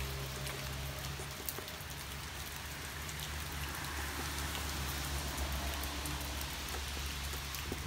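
Steady rain: an even hiss with scattered drop ticks, over a low steady hum.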